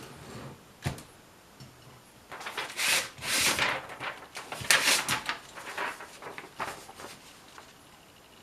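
Clicks, then a run of sliding, rasping sweeps and clacks from handling a Brother Opus 901 all-metal manual typewriter, loudest in the middle and dying away near the end.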